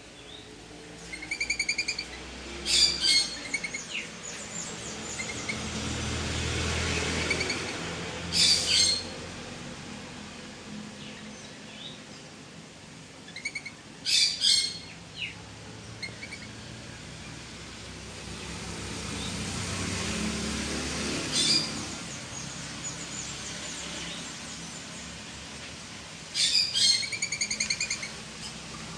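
Bird calling in bursts three times, about twelve seconds apart: each time a fast rattling chatter of high notes, then a few loud, sharp calls. Between the bursts a low rushing sound swells and fades twice.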